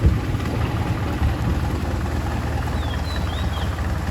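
Motorboat engine running steadily with a low-pitched drone.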